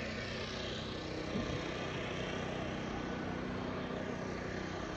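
A steady, distant engine drone under an even outdoor hiss.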